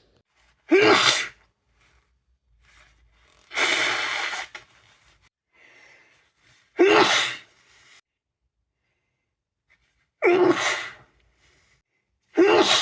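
A person with a cold sneezing four times, each a sudden short burst a few seconds apart. A longer, noisier burst comes about four seconds in, between the first and second sneezes.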